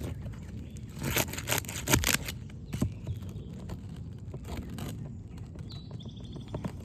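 Quick series of sharp clicks and scrapes from a tool working against roof shingles as nails are pried loose to free a damaged shingle, heaviest in the first couple of seconds and again briefly later on.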